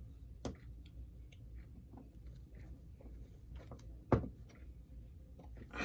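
Small screwdriver working at a stuck screw in a model train locomotive: faint scraping and ticking, with two sharp clicks, about half a second in and about four seconds in. The screw won't come out.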